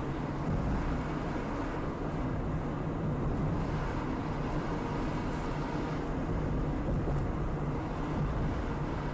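Road and engine noise of a car cruising steadily at about 45 km/h, heard from inside the cabin: an even rumble with a low hum, unchanging throughout.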